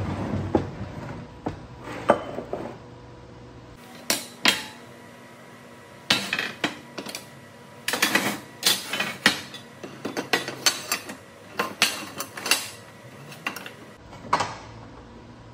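Lengths of aluminium square tube and metal clamps clanking and clinking against each other and a metal workbench as the tubes are laid out and clamped into a frame: a string of sharp metallic knocks, thickest in the middle and later part.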